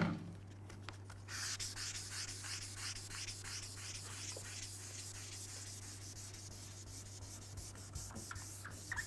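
Hand wet-sanding of a car fender's single-stage paint with 2500-grit paper on a sanding pad: a steady back-and-forth rasping of about three strokes a second, starting about a second in. A short squeak near the end comes from a finger rubbing on the bottom of the pad.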